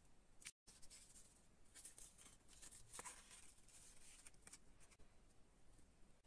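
Near silence with faint rustling and small clicks of paper and cardboard pieces being handled, the clearest click about three seconds in. The sound drops out completely for a moment about half a second in.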